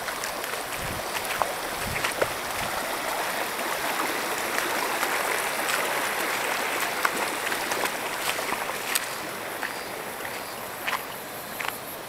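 Shallow mountain stream running and rippling over rocks in a steady rush, with a few scattered small clicks. There are a few low bumps in the first two seconds, like wind or handling on the microphone.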